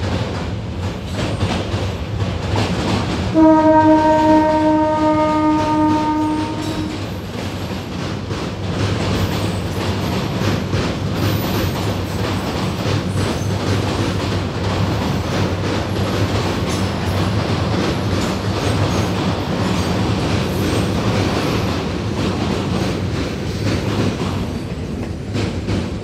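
Passenger train crossing a steel truss railway bridge, its wheels clattering and rumbling steadily. About three and a half seconds in, the locomotive gives one long horn blast on a single tone, lasting about three seconds.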